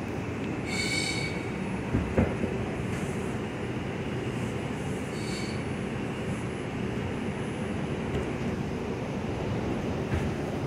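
R142 subway car running on the rails, heard from inside the car, with a steady rumble. The wheels squeal briefly, high-pitched, about a second in and more faintly around five seconds, and there are two sharp knocks around two seconds.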